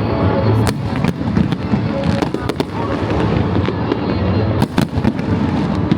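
Fireworks display: repeated sharp bangs and crackling bursts at irregular intervals over a continuous low rumble.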